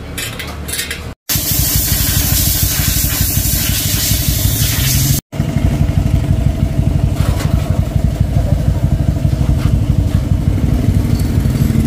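Motorcycle engine running while riding, with heavy wind noise on the microphone for the first few seconds. The sound drops out briefly twice at edit cuts.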